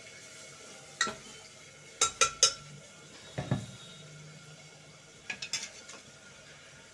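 A metal spoon clinking against an aluminium pressure cooker while stirring: a single clink about a second in, three quick ones around two seconds, a duller knock, then a few more light clinks.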